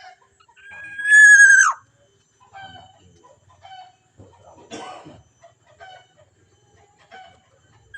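A bird's loud, harsh, drawn-out call about a second in, held steady for under a second and then dropping off sharply, with faint short chirps scattered around it and a brief scrape-like noise near the middle.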